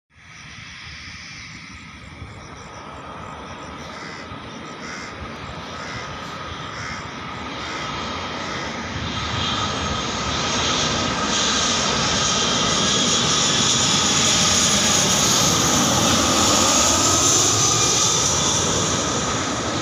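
Boeing 737-900ER's CFM56-7B turbofan engines on landing approach: a jet roar with a high whine that grows steadily louder as the airliner nears, peaks near the end and begins to fade.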